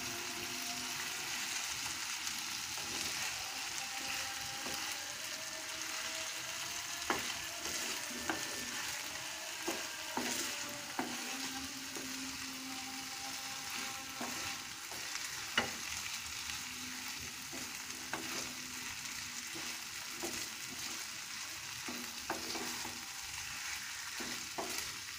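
Moong dal and a fried rohu fish head sizzling in a pan while being stirred with a wooden spatula: a steady hiss broken by a few sharp taps and scrapes of the spatula against the pan.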